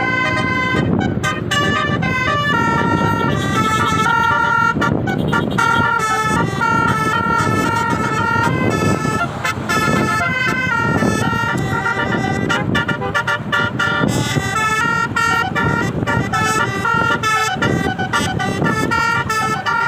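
A tour bus's multi-tone 'telolet' Basuri horn playing a continuous tune of steady notes that change pitch in steps, over engine and crowd noise.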